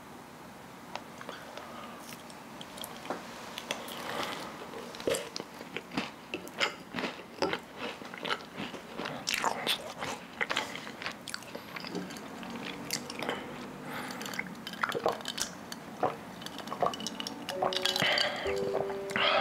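Close-up eating of a baked yakgwa (Korean honey cookie) topped with ice cream: a long run of irregular crisp bites and chewing crunches. Music comes in right at the end.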